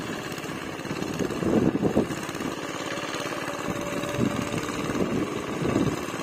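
A small engine running steadily, a fast even chugging.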